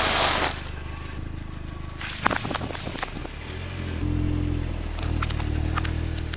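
Car engine running steadily, with a rushing noise at the start and a few sharp cracks and snaps about two to three seconds in. The engine gets louder about four seconds in.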